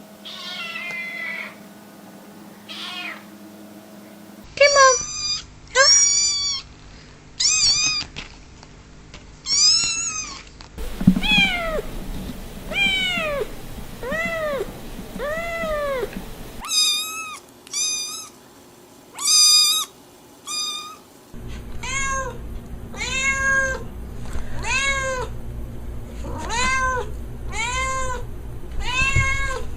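Kittens meowing over and over, high-pitched arching calls about one a second, in a string of short clips that change abruptly every few seconds.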